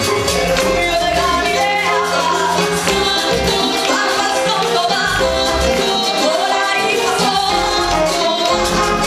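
Live Latin Christian worship music: two women singing into microphones over a band with congas, keyboard, guitar and drums, with shaken percussion keeping a steady dance beat.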